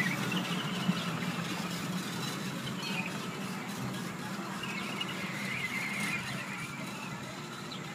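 Miniature ride-on train running along its track: a steady low hum with high, wavering squeals now and then, easing slightly as it moves away.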